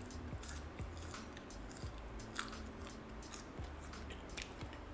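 Close-miked chewing of a mouthful of French fries: soft crunches and wet mouth clicks scattered through, with no steady rhythm.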